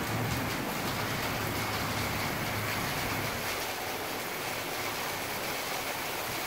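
Steady rain falling on rooftops and a flooded street. A passing motor vehicle's engine adds a low hum that fades away by about halfway through.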